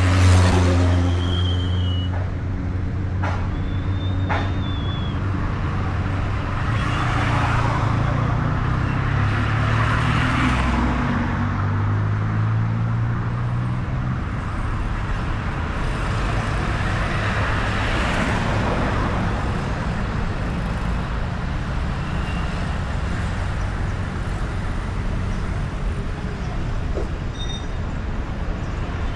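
Road traffic with cars and motorbikes passing one after another in swelling waves. A heavy vehicle's engine runs low underneath for the first half. A few brief high-pitched tones sound in the first five seconds.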